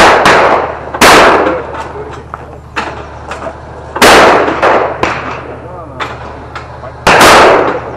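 Four shotgun shots at clay targets: one at the very start, another about a second later, a third about four seconds in and a fourth about seven seconds in, each loud with a long fading echo, and lighter clicks in between.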